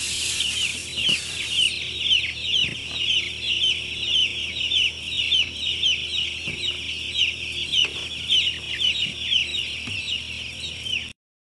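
A flock of broiler chicks peeping without pause: many short, high, falling chirps overlapping one another. A high hiss from the litter sprayer runs underneath and stops about two seconds in.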